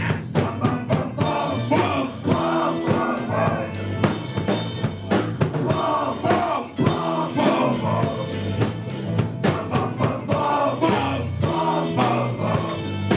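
Live rock band playing an instrumental passage, the drum kit's bass drum and snare hits prominent over steady bass notes.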